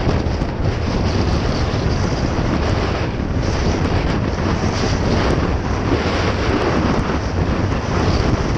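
Steady wind noise on the microphone of a Honda PCX 125 scooter in motion, with the scooter's engine and tyre noise underneath.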